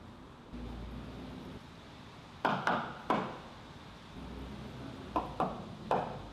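Six sharp knocks or taps on a hard surface, in two quick groups of three, over a low steady background rumble.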